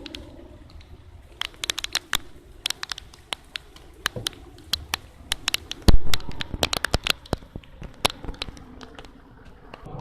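Big raindrops tapping irregularly on nearby hard surfaces in heavy rain, a scatter of sharp ticks over a low rain hiss, with one louder thump about six seconds in.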